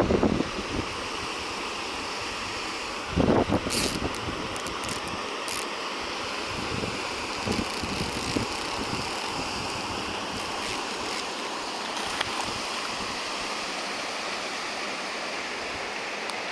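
Steady rush of shallow flowing river water close to the microphone, with a short knock about three seconds in and a few faint clicks just after.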